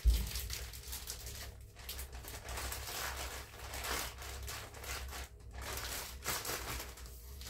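Plastic freezer bags crinkling and rustling as bagged chicken breasts are handled and slid into a larger freezer bag, with a soft thump at the very start.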